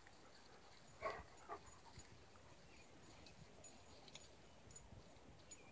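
Near silence, broken about a second in by two short, faint dog whimpers.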